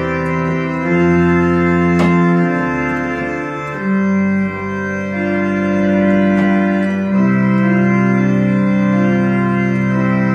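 Home-built digital pipe organ (computer pipe organ) played on manuals and pedalboard: sustained chords changing every second or so over deep pedal bass notes, with a few short clicks.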